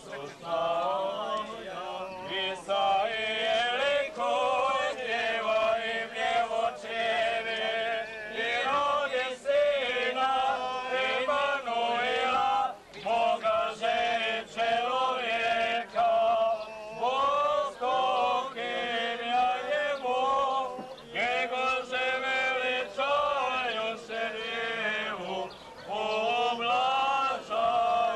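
Men's voices chanting an Orthodox church hymn: a slow sung melody in long phrases, with short pauses for breath.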